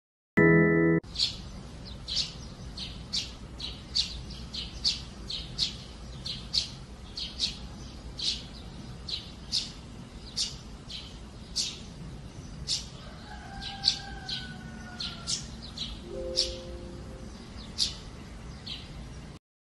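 Sparrows chirping: short, high chirps repeated at roughly two a second. A brief, loud pitched sound comes right at the start.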